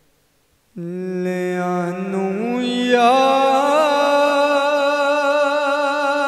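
A man's voice singing the opening of a Punjabi naat. It comes in suddenly about a second in with long, wavering held notes and no clear words, stepping up in pitch twice.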